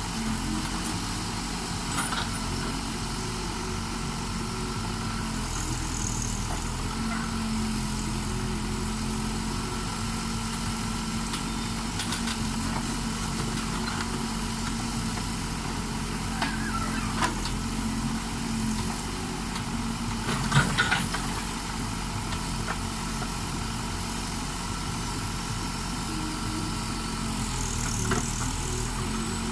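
Case backhoe's diesel engine running steadily, with a few short knocks and clanks scattered through and a louder cluster of them about two-thirds of the way in.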